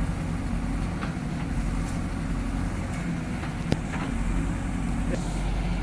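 JCB backhoe loader's diesel engine running steadily, with a sharp knock about three and a half seconds in.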